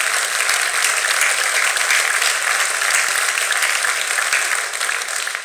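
Audience applauding: a dense, steady round of many hands clapping that tails off near the end.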